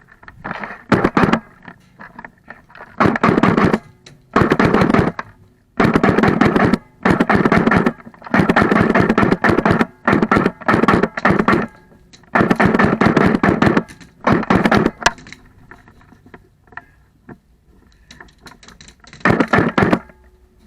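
Airsoft guns firing in about nine rapid full-auto bursts, each from half a second to two seconds long, with a lull of several seconds before the last burst.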